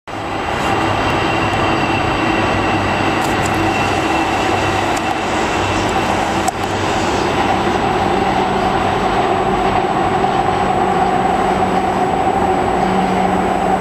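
Electric light-rail train running steadily across a bridge: a continuous rumble with a steady hum.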